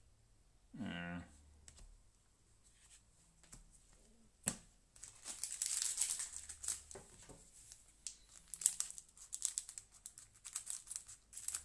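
Foil wrapper of a trading-card booster pack crinkling and crackling as it is handled and torn open. The crackling is densest about five to seven seconds in, with scattered crackles after it and a single sharp click just before it starts.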